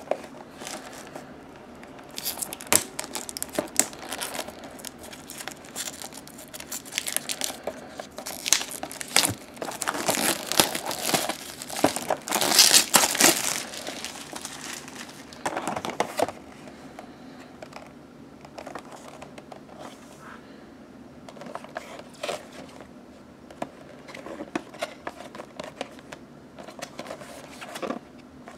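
A cardboard model box with a clear plastic window being handled and opened: crinkling plastic and rustling, scraping cardboard with small clicks. The rustling is busiest and loudest around the middle, then thins to occasional small rustles and clicks.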